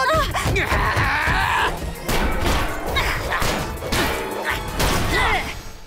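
Animated sound effects of two giant fighting robots trading blows: a rapid run of hits and crashes over action music.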